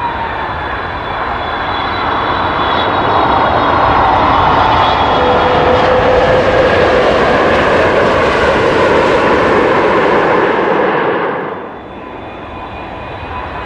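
Landing airplane's turbine engines: a steady whine over a broad roar that swells over the first few seconds and holds loud, then falls off sharply about eleven seconds in, leaving a quieter whine that builds again near the end.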